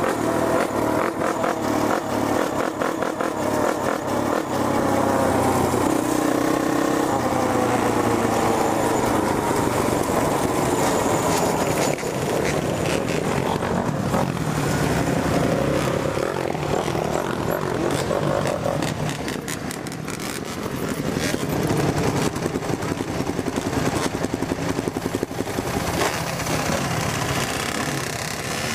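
Quad (ATV) engine running while riding, revving with its pitch rising over the first several seconds, with heavy wind noise on the microphone.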